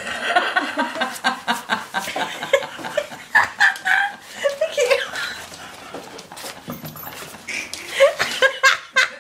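People laughing, with a quick run of short laughs near the end, over scattered clicks, knocks and rustling as the dog moves about.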